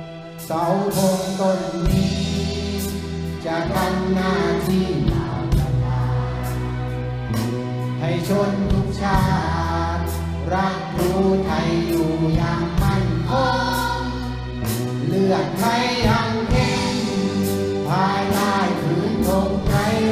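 Children's choir singing in unison with an orchestra accompanying, strings and sustained low notes under the voices.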